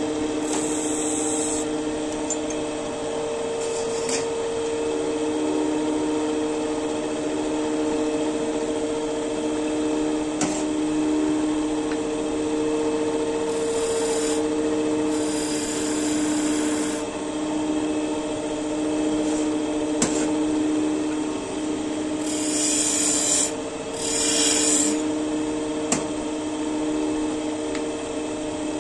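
Wood lathe motor running with a steady hum while a turning tool cuts the spinning wood in short scraping bursts, several of them, the longest about two seconds.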